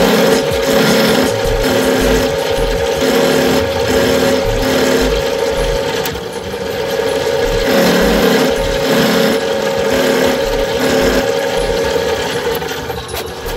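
Milling machine spindle running with a steady whine, its end mill cutting a small brass hex part, with lower pulses coming and going irregularly as the cutter engages.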